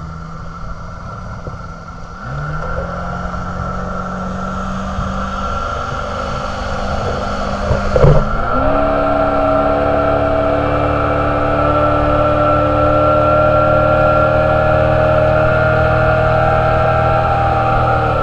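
Motorboat engine opening up in two steps, rising in pitch and loudness until the boat is planing, then running steady at speed. There is a single sharp thump about eight seconds in.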